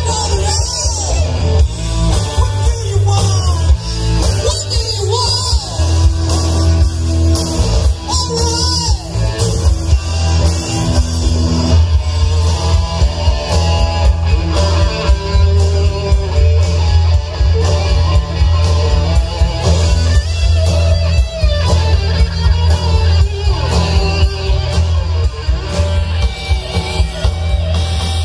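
Live rock band playing amplified electric guitars and drums, with singing, through a PA.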